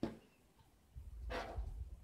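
Faint handling noises from hot-gluing parts on a workbench: a sharp click at the start, then about a second in a low rumble with a brief rustling scrape.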